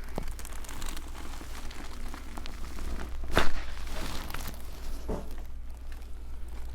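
Crinkling and rustling handling noise over a low hum, with one sharp loud click about three and a half seconds in and a fainter one near five seconds.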